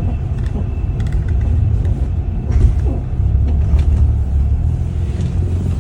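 Car driving: a steady low rumble of road and running gear, with a few short clicks or knocks scattered through it.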